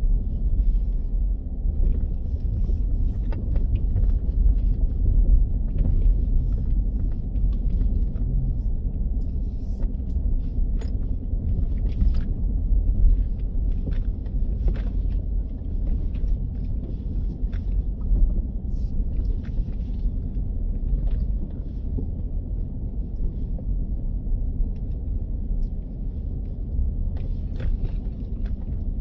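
Vehicle driving on a rough dirt road: a steady low rumble with scattered knocks and rattles.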